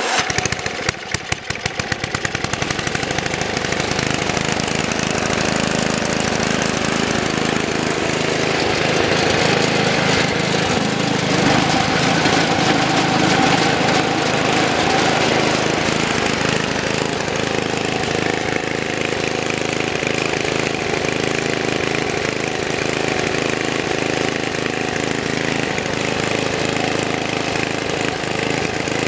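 MTD two-stage snowblower's small engine catching and settling into a steady run. The auger is engaged and turning through the middle of the stretch.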